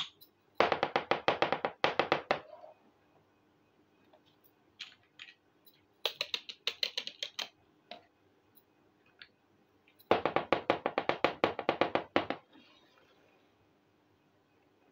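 Rapid light tapping and clicking of hands on small toy kitchen pieces on a tabletop, in three bursts of about two seconds each at roughly ten taps a second, with a few single clicks between.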